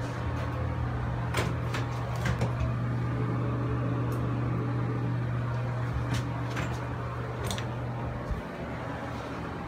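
Steady low mechanical hum, like an appliance or air-conditioning unit running, with a few sharp clicks and taps scattered through it.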